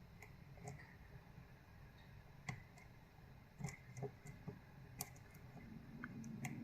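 Faint, sparse clicks of a lock pick and tension wrench working the pins in the keyway of a Yale 2100 series lock, with a few sharper clicks at irregular intervals.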